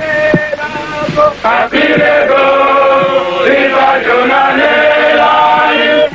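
A group of male voices chanting a song together, holding long notes that shift in pitch every second or so.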